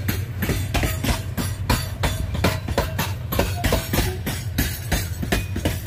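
Loaded limestone freight wagons rolling past close by, their wheels clattering over the rail in a fast, even rhythm of about five knocks a second above a steady low rumble.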